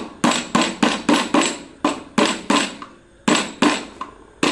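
Hammer knocking repeatedly on an e-rickshaw motor's rotor ring to drive its magnets out, about three sharp knocks a second with a short pause about three seconds in. Each knock carries a faint metallic ring.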